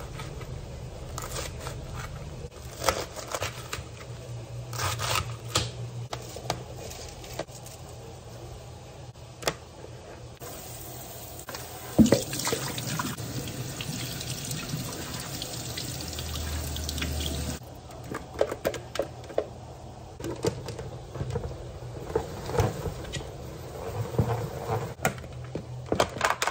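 A knife chopping romaine lettuce on a plastic cutting board in scattered knocks. About ten seconds in, a kitchen faucet runs for about seven seconds over the cut lettuce in a salad spinner basket. Then comes the knocking of the plastic salad spinner being handled.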